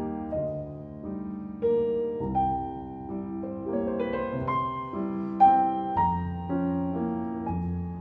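Background piano music, single notes and chords played one after another.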